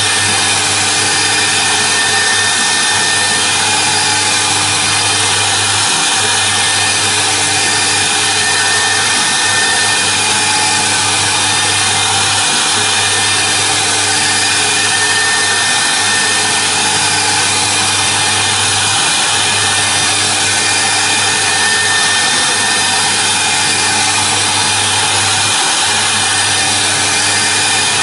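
CNC router spindle running steadily while its cutter carves a foam cylinder turning on the rotary axis: a continuous machine noise with a few held tones over it. The low hum briefly dips about every six and a half seconds.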